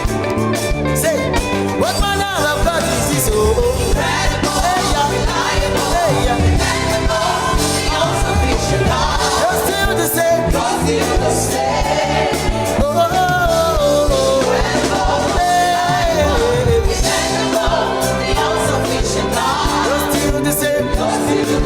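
Gospel music: a voice singing a melody over a band with a steady beat and guitar.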